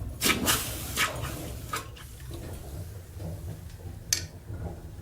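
Light metallic clinks and taps from small metal pieces being handled: a cluster in the first two seconds and a single sharper clink about four seconds in, over a faint low hum.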